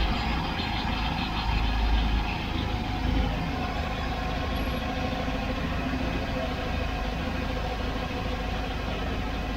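Boat's Chevrolet big-block 454 V8 idling steadily, with a slight swell about two seconds in, while its carburetor's idle mixture is adjusted by ear.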